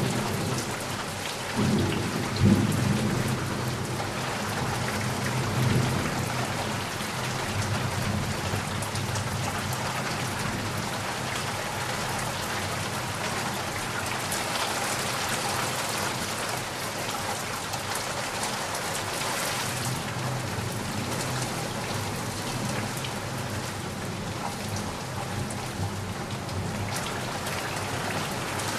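Heavy rain falling steadily in a thunderstorm, with rolling thunder rumbling through the first few seconds and a fainter rumble later on.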